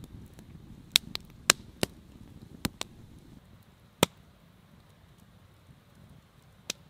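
Wood fire in a Dakota fire pit crackling, with a series of sharp, irregular pops, the loudest about a second and a half and four seconds in, over a low murmur of flame.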